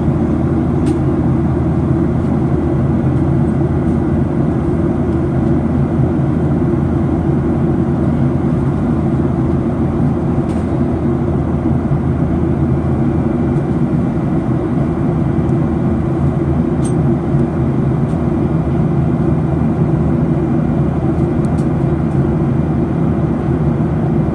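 Steady drone of a Boeing 737-800's CFM56-7B turbofan engines and rushing air, heard from inside the passenger cabin in flight. A few faint clicks are heard.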